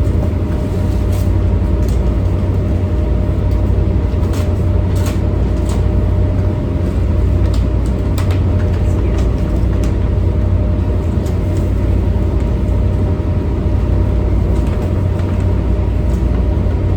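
Steady, loud low drone of a towboat's diesel machinery running, with a few faint steady tones above it and scattered light clicks and knocks.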